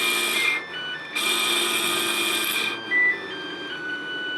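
Small electric motor of a MiniMite air raid siren, running fast without its chopper, so it gives a steady whine and hiss rather than a siren wail. It cuts out about half a second in, starts again a second in and stops near three seconds. After that come a few short beeps at different pitches.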